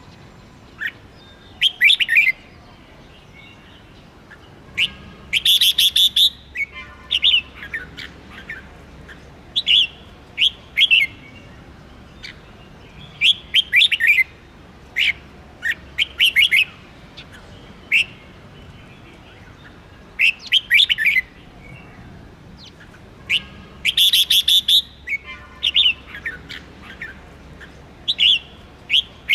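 Red-whiskered bulbul singing: short, loud whistled phrases every one to three seconds, with quieter chatter between them.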